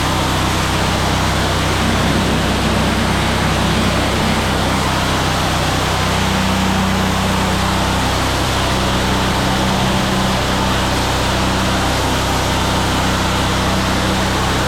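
Gas-powered pressure washer running steadily, its engine drone under the constant hiss of the high-pressure water spray.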